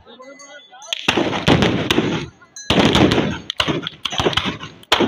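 A rapid, overlapping volley of gunshots from long muzzle-loading guns fired by a group of men. The shots come in dense clusters starting about a second in, with brief gaps between them.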